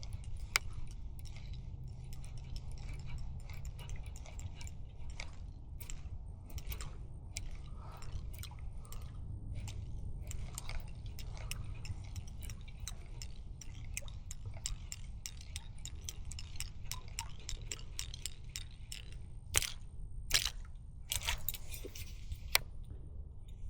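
Wind buffeting the microphone as a steady low rumble, with scattered small irregular clicks and crunches of handling, a few louder ones near the end.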